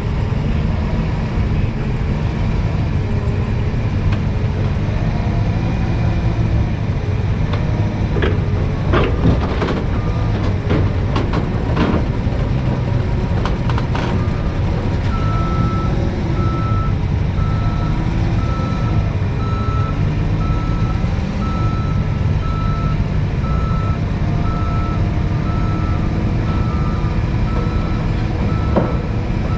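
Forklift engine running steadily, with a cluster of sharp metallic clanks as its forks work at a heavy steel roll on a wooden truck deck. Halfway through its back-up alarm starts, beeping about once a second to the end.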